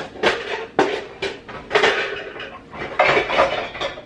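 Metal baking pans clanking and rattling loudly against each other as a Bundt pan is pulled out of a stack in a lower kitchen cabinet. The irregular clatter runs on in several bunches.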